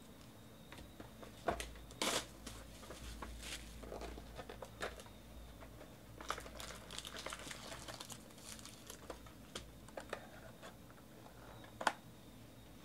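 A cardboard trading-card hobby box being opened and its foil-wrapped card packs handled: a short tear about two seconds in, then crinkling of the packs, with scattered clicks and a sharp snap near the end.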